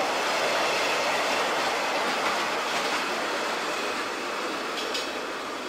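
Rio Grande freight train's last cars and caboose rolling past on steel rails: a steady rumble and rattle of wheels, with a few sharp clacks near the end. It grows slightly fainter as the caboose draws away.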